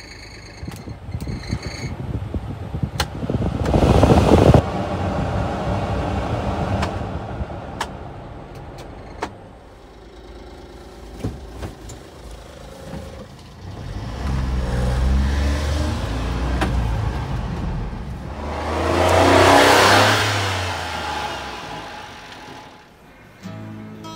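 1996 Honda Acty mini truck's small three-cylinder engine running, heard from inside the cab, its pitch stepping up and down a few times as it is revved. A loud rush of noise a few seconds in cuts off sharply, and a broad swell of rushing noise rises and falls near the end.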